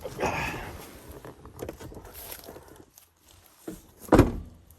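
Footsteps and rustling through forest undergrowth, with one loud thump about four seconds in.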